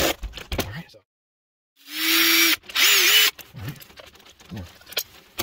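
Cordless drill with a 5/16 nut driver running twice in short bursts, taking out the screws that hold the module on an ECM outdoor fan motor; the second run dips and rises in pitch. Light clicks and knocks of handling come before and after.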